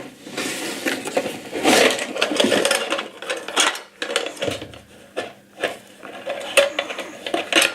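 Plastic toy parts and packaging being taken out of a box and set down: irregular light clatter and clicks of hard plastic pieces, with bouts of rustling.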